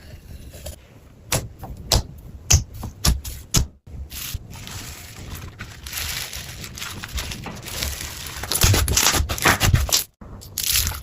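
Hands squeezing and poking slime: a few sharp sticky pops in the first few seconds, then a longer run of crackling and squishing that grows louder toward the end.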